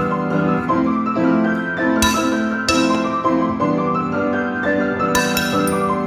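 Instrumental keyboard music, with held chords and melody notes changing every second or so.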